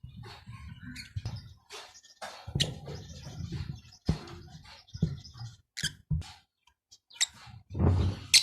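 African lovebirds giving short, scattered chirps over intermittent low rumbling and rustling, which grows louder near the end.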